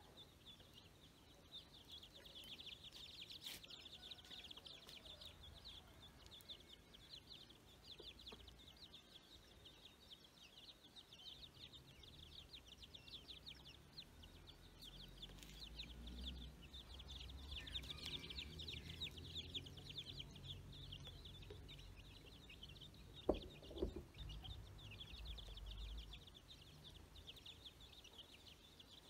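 Faint, rapid high-pitched peeping of a group of ducklings. A low rumble swells through the middle, and two sharp knocks come close together about two-thirds of the way in.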